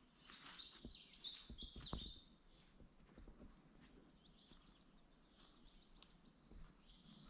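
Faint songbird song: quick, high chirping phrases repeated throughout. A few soft knocks, like footsteps, in the first two seconds.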